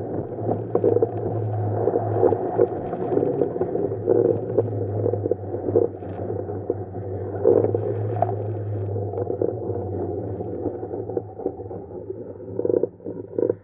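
Water rushing and splashing against the hull of a Tiwal 3 inflatable sailing dinghy as it sails fast, with wind and spray buffeting the camera. A steady low hum runs underneath and fades near the end as the boat slows.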